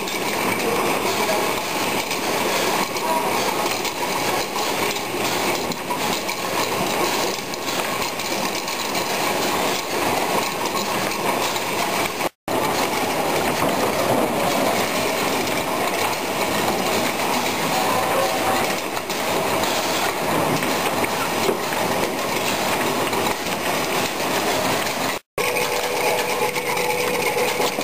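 Aweta-Autoline Pentacup tomato grading line running: a steady mechanical clatter of its cup conveyor. The sound cuts out for an instant twice.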